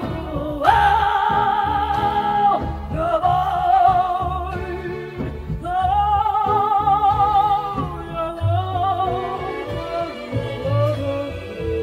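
A soprano singing long held high notes with a wide, fast vibrato, three sustained phrases and then lower notes, over instrumental accompaniment with low drum beats.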